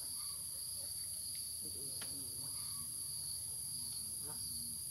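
Steady, high-pitched drone of an insect chorus, crickets or cicadas, unbroken in two shrill bands.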